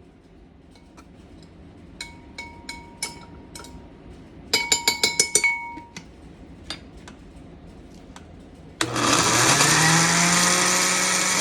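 Ringing clinks and taps on a kitchen container, with a quick run of about six in the middle. About nine seconds in, a blender motor switches on, rises in pitch as it spins up, then runs steadily, blending a sauce.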